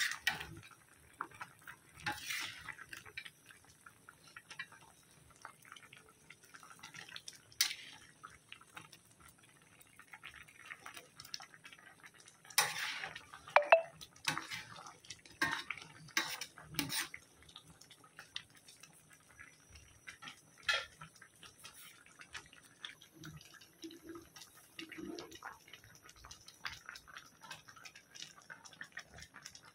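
Thick coconut-milk curry with fish and eggplant bubbling in a stainless steel pan: irregular soft pops and plops, with a cluster of louder ones around the middle.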